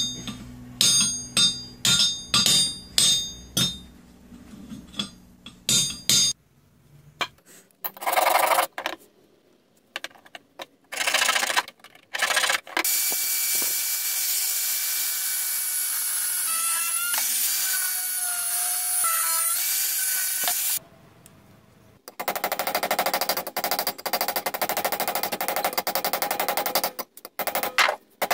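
A hammer striking metal on a small anvil, about two ringing blows a second, then scattered knocks. Later an angle grinder runs steadily on metal for about eight seconds, its whine shifting in pitch as it bears on the work, and near the end a steady rapid rattling power-tool noise.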